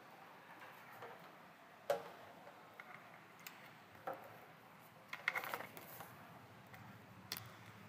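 Faint room tone broken by a few light, isolated clicks or knocks about two, four and seven seconds in, and a quick rattle of small clicks a little after five seconds.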